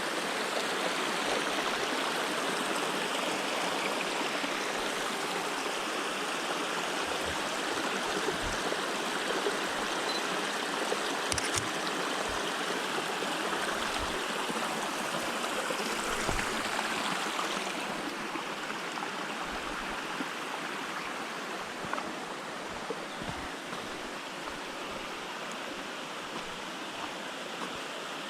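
Waterfall and its stream: a steady rush of falling and flowing water, dropping slightly in level about two-thirds of the way in.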